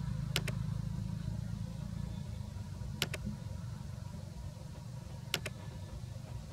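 Three double mouse clicks about two and a half seconds apart: the click sound effect of an on-screen like, follow and share button animation. They sit over a low steady rumble.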